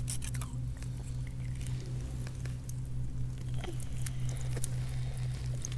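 A knife working inside a scallop shell, cutting and pulling the frill free from the muscle: scattered small clicks and wet scraping, over a steady low hum.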